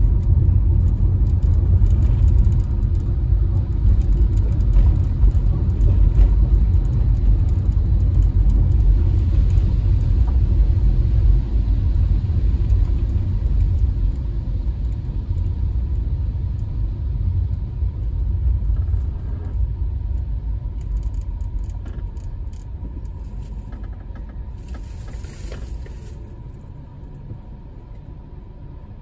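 Low rumble of a car's engine and tyres on a wet road, heard from inside the cabin, fading gradually through the second half as the car slows to a stop.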